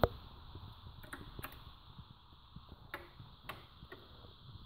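A few faint, sharp clicks, about five scattered over a few seconds, over a low steady hiss.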